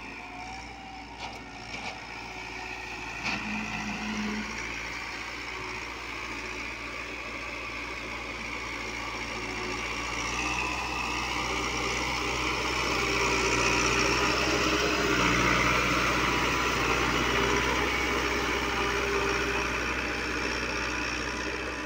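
Massey Ferguson 385 tractor's four-cylinder diesel engine running steadily under load as it pulls an eleven-tine cultivator through the soil. It grows louder through the middle, peaking about two-thirds of the way in as the tractor comes close.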